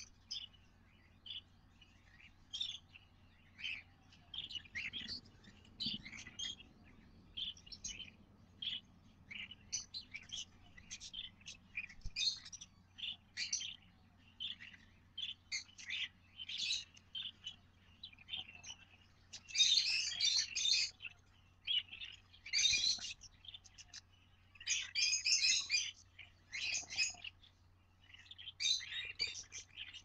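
Baby cockatiels and budgies chirping inside a nest box: many short, high calls throughout, with louder, dense bursts of calls about two-thirds of the way in and again near the end. A faint steady low hum sits under them.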